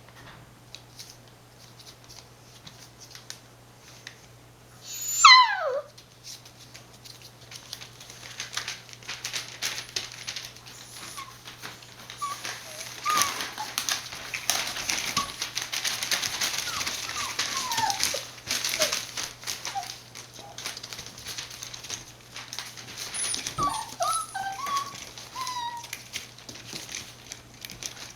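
Six-week-old border collie puppies whining and whimpering, with one loud yelp that falls sharply in pitch about five seconds in. From around the middle there is a stretch of rustling and scratching as the puppies move about, with short high whines, then a few more whimpers near the end, all over a steady low hum.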